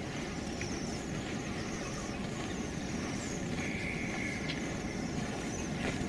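Steady low outdoor background rumble, with faint high bird chirps over it and a short higher whistle about three and a half seconds in.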